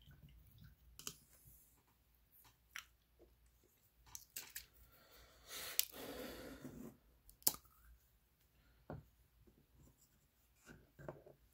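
Faint desk handling sounds: scattered sharp clicks and light knocks, with a rustling scrape of about a second and a half near the middle, as a painted miniature is set down on a cutting mat and a small hinged-lid pot is opened.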